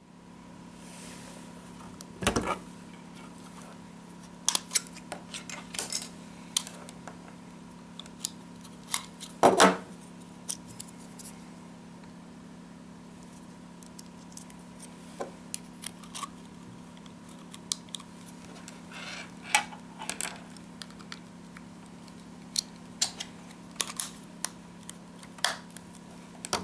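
Small hard objects being handled: scattered clicks, taps and light rattles, louder about two seconds in and again near ten seconds, over a steady low hum and a faint steady high tone.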